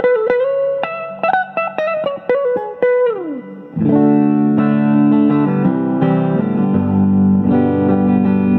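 Firebird electric guitar played through a Crate GT-80 amplifier: a quick single-note lead line with bent notes, a slide down in pitch about three seconds in, then sustained ringing chords.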